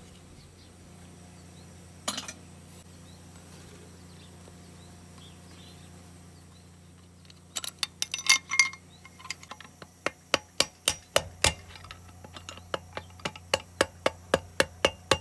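Metal hand-tool work on the connecting rod of a small push-mower engine. A single metallic clink comes about two seconds in. About halfway through a run of sharp metal clicks starts and settles into an even three or so a second.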